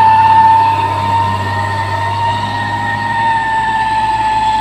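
Diesel tanker truck pulling up a climb: a steady engine drone with a strong, steady high-pitched whine above it that falls very slightly in pitch.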